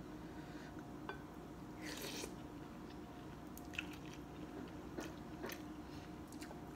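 A person eating rice noodle soup: one slurp of noodles and broth about two seconds in, then chewing, with a few light clicks of the spoon and chopsticks.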